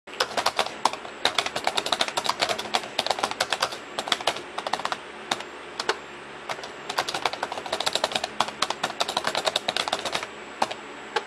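Computer keyboard being typed on in quick runs of keystrokes, with a short lull around the middle and only a few scattered strokes near the end.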